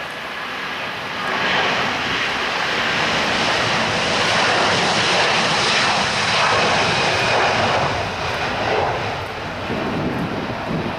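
Airliner engines passing close by, swelling over the first second and a half, staying loud for several seconds, then easing off a little near the end.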